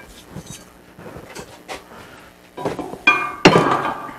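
Steel parts of a manual tire changer clanking: a few faint clicks, then about three seconds in a scrape and a sharp metal clank that rings on.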